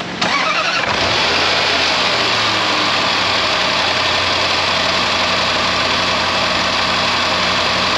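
Supercharged 5.0 V8 of a Range Rover Sport, just fitted with new spark plugs, firing up suddenly. It flares for about the first second, then settles into a steady idle.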